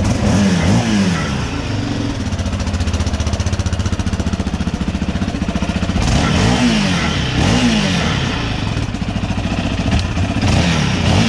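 Yamaha Raptor 700 ATV's single-cylinder engine idling and being blipped: the revs rise and fall a few times, near the start, twice midway and again at the end. It is being run to track down a rattle the riders think is coming from inside the muffler.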